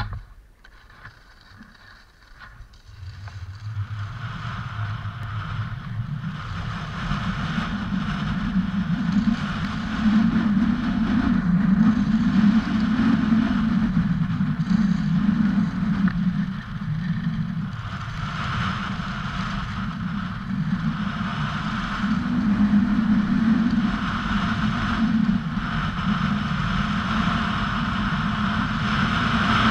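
Wind rushing over a pole-held camera's microphone and skis scraping on snow as a skier sets off downhill. Quiet for the first few seconds, then louder as speed builds, swelling and easing through the turns.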